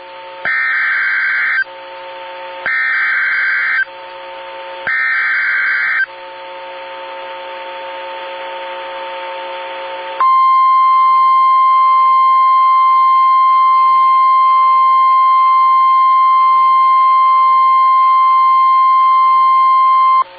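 NOAA Weather Radio Emergency Alert System activation for a severe thunderstorm warning. First come three loud bursts of the warbling digital SAME header, each about a second long and about a second apart. About ten seconds in, the steady 1050 Hz warning alarm tone starts and holds.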